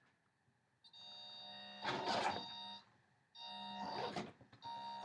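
Brushed 35-turn electric motor of an SCX10 RC crawler whining as the truck drives, starting about a second in and stopping and restarting twice, with louder rasps of gears and tyres partway through. The motor runs on a stock ESC that the owner blames for jittery low-speed driving, since it suits only motors of 21 turns or less.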